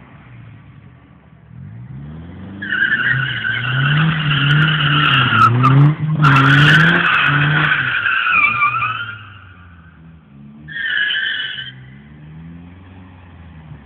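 Nissan 200SX drifting: the engine revs up and down while the tyres squeal loudly for about seven seconds. A second, short squeal comes near the end.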